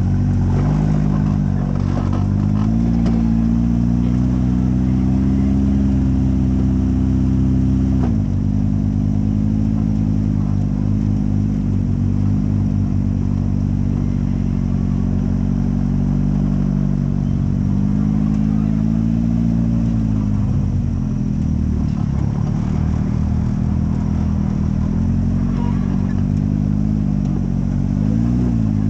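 Off-road buggy engine running under load as it crawls over slickrock and sand, heard close up from on the vehicle. The engine pitch rises and falls with the throttle, dropping sharply about eight seconds in and climbing again near the end.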